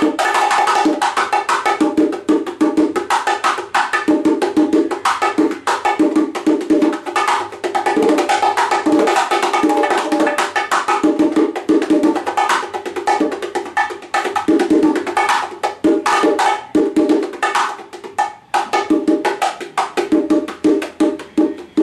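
Bongos played fast by hand, with timbales, in a lively percussion jam of rapid, sharp strokes. The playing thins out a little near the end.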